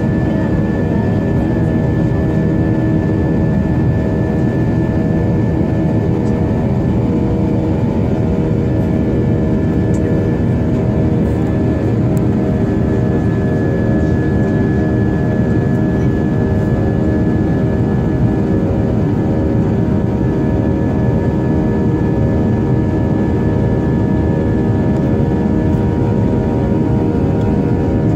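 Airliner jet engines and rushing air heard from inside the passenger cabin during the climb after takeoff: a loud, steady roar with a constant hum of several tones through it.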